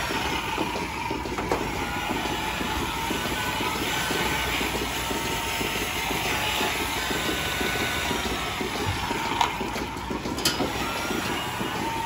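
Steady mechanical running noise with a faint steady tone and a few sharp clicks.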